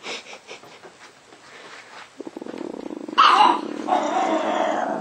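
Chihuahua growling in play: a low rattling growl begins about two seconds in and swells into a louder, harsher snarl about a second later, held to the end.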